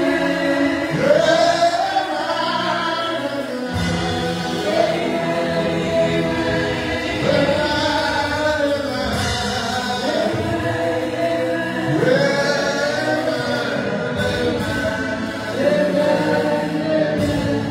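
A congregation singing a gospel praise chorus together in phrases a few seconds long, over hand-clapping and a drum kit.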